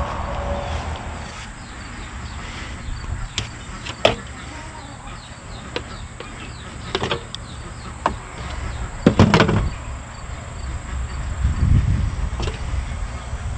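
Scattered clicks and knocks of a knife, scissors and hands working on a tabletop as a quail is skinned and cleaned, the loudest cluster of knocks about nine seconds in. Underneath run a steady low rumble and crickets chirping.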